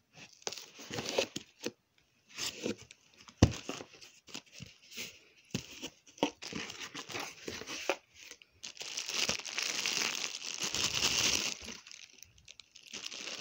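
Cardboard shipping box being opened by hand: flaps pulled and torn, with irregular scrapes and a sharp knock a few seconds in. Then a longer stretch of plastic bag wrapping crinkling as the bagged plush toy is lifted out of the box.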